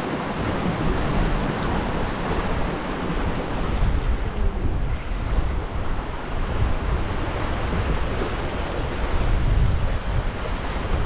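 Sea swell washing and surging against the rocks below, with gusty wind buffeting the microphone.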